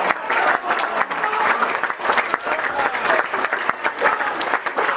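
Audience applauding: many hands clapping unevenly, with a murmur of crowd voices underneath.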